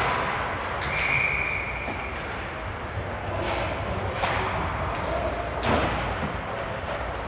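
Ice hockey game in play: scattered sharp clacks of sticks and puck over a steady rink rumble, the clearest knocks about four and six seconds in.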